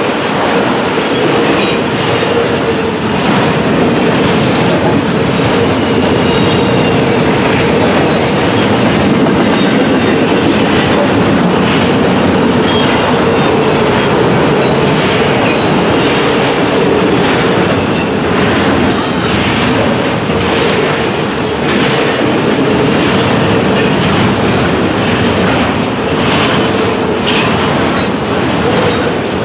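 Double-stack intermodal freight train rolling past: a loud, steady rumble of steel wheels on rail, with frequent clicks as the wheels pass over the rail joints.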